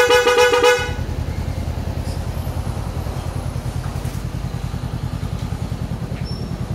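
Motorcycle horn on a Honda CB500X beeping once for under a second at the start, over the bike's parallel-twin engine idling steadily.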